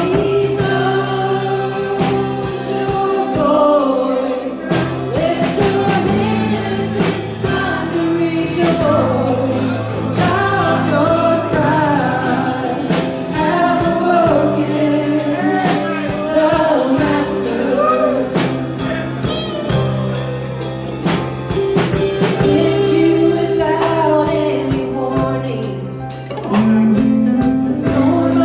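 Live gospel worship song: singers over a band with sustained bass notes and a drum kit keeping a steady beat.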